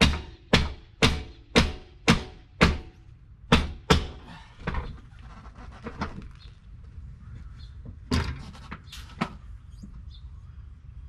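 Metal knocking at the end of an RV awning: sharp, ringing strikes about two a second that stop about three seconds in, followed by a few scattered knocks and a short cluster of knocks about eight seconds in.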